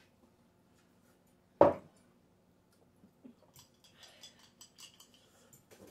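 One sharp knock on the table about a second and a half in, then a scatter of light clicks and clinks from tableware and a small plastic container being handled.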